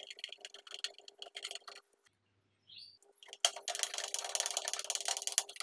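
Screwdriver driving the mounting screws of a high-voltage transformer into an insect killer's steel housing: quick metallic clicks for about two seconds, a short pause, then a longer stretch of rasping metal-on-metal scraping.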